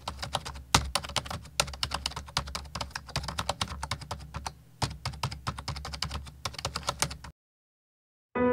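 Typing sound effect: a rapid, uneven run of key clicks, with a brief pause a little past the middle, stopping about a second before the end.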